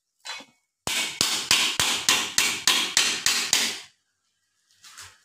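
Rapid chopping on a cutting board, about ten quick, even strokes of a knife or cleaver in three seconds, with a softer single knock before and after.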